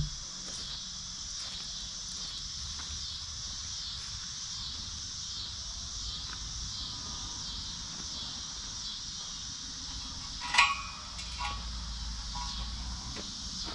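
Steady chorus of crickets chirping in a high, evenly pulsing trill. About ten and a half seconds in, a single short metallic clink with a brief ring.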